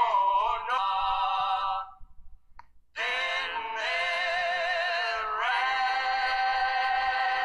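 A man singing long, held notes with a wavering vibrato, breaking off for about a second near two seconds in and then holding a note to the end. These are the closing notes of the song.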